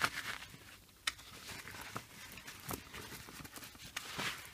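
Paper towel rustling as a hand rubs freshly oiled steel bolts and nuts inside it, with a few light clicks of the metal parts knocking together.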